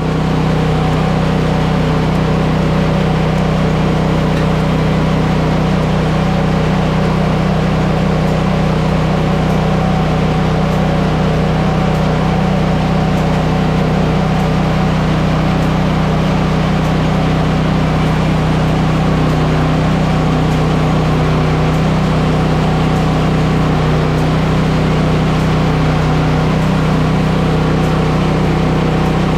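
Portable band sawmill's engine running steadily at a constant pitch as the blade cuts through a large log.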